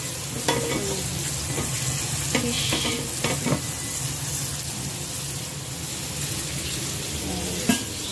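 Battered pieces frying in shallow oil in a nonstick pan, sizzling steadily with a few sharp clicks and pops, over a steady low hum.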